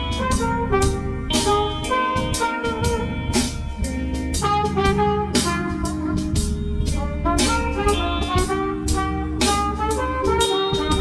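Jazz-style background music with saxophone or brass lead over a drum kit and a steady beat.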